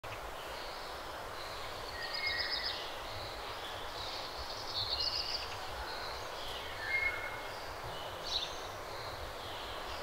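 Birds singing outdoors over a steady background hiss, in several short chirping, trilling phrases a couple of seconds apart.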